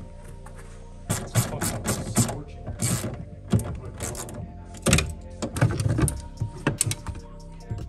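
Ratchet wrench clicking in short quick runs, mixed with knocks and rattles of plastic interior trim panels being worked loose by hand.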